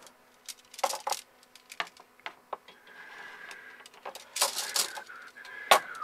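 Soft copper refrigeration tubing being uncoiled and handled: scattered light clicks, clinks and scrapes of the metal tube. The busiest stretch comes about four and a half seconds in, with a sharp knock just before the end.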